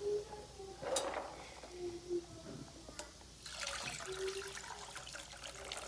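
Water scooped from a basin of soaked açaí fruits with a plastic bowl, a brief splash about a second in, then poured through a mesh strainer from about three and a half seconds on. It is the hot soaking water being drained off once the fruits have softened.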